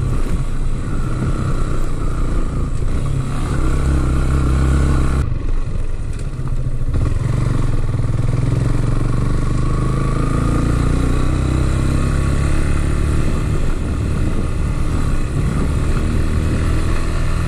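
Motorcycle engine running steadily while riding along a rough dirt road, with a brief dip in the sound about five seconds in.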